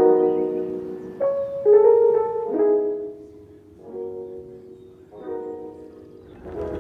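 Slow instrumental background music of held chords that change every second or so.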